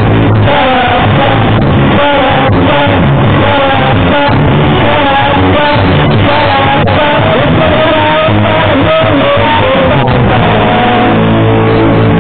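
Live rock band playing with electric guitars and a drum kit, loud and muffled in the recording, with a wavering melodic line over the band; near the end it settles into steady held notes.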